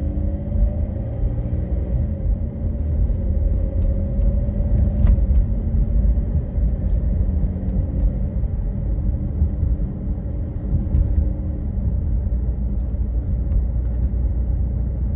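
Car engine running with a steady deep rumble, its pitch drifting slowly up and down.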